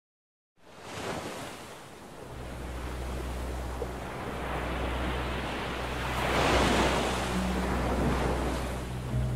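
Surf washing on a shore with wind noise, fading in about half a second in; a wave swells loudest around six and a half seconds in, over a steady low hum.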